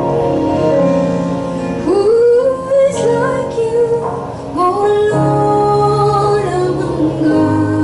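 A woman singing a solo worship song into a handheld microphone over instrumental accompaniment. The accompaniment plays alone at first, and her voice comes in about two seconds in, holding long notes with vibrato.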